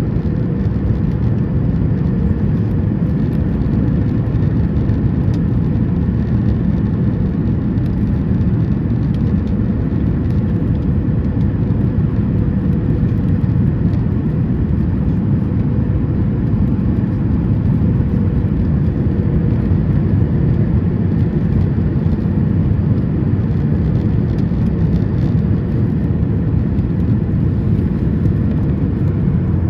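Steady cabin noise inside a Boeing 737 MAX 9 airliner during descent: an even, deep rumble of airflow and engines with a faint steady hum above it.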